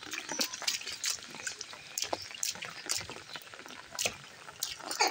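Bare feet slapping and splashing in shallow rainwater on concrete, in irregular steps, with rain falling. A short falling vocal sound comes near the end.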